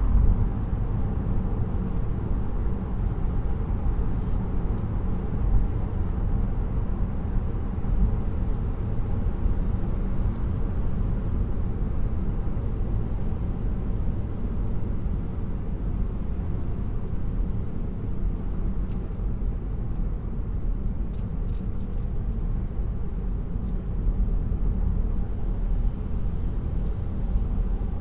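Steady low road and tyre rumble from a 2018 Opel Ampera-e electric car being driven, with no engine note.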